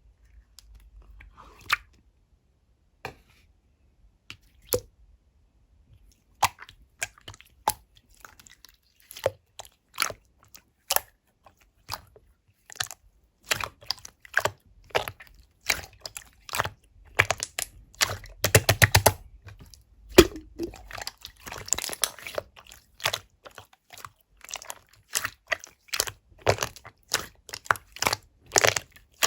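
Clear slime being squeezed and poked by hand, giving sharp, irregular popping clicks. They are sparse at first and grow dense about six seconds in, with a quick run of clicks about two-thirds of the way through.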